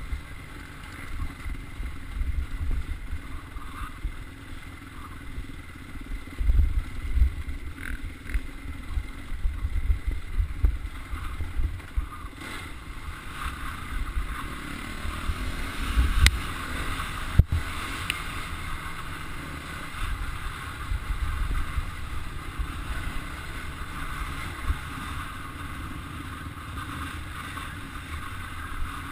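Off-road motorcycle running along a rough dirt trail, with wind buffeting and rumbling on the microphone and bumps jolting the mount, louder around six and sixteen seconds in.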